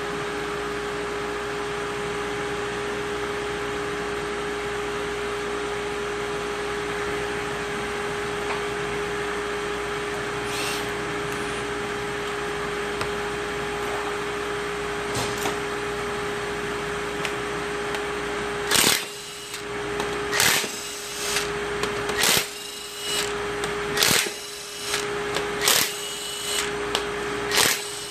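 A steady mechanical hum, then from about two-thirds of the way in a power tool runs in a string of short bursts about a second apart as the 17 mm main cap bolts of a Mazda B2000 2.0 engine are loosened.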